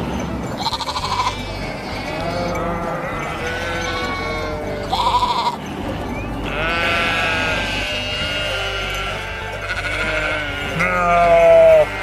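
A flock of sheep bleating: many overlapping calls of different pitches follow one another without a break, two of them quavering.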